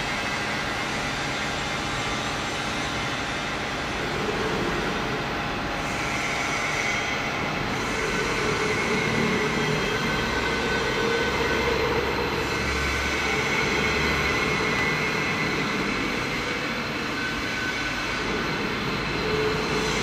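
A small 50 kg welding positioner's electric motor and gear drive running as its turntable rotates: a steady mechanical hum with a few held tones.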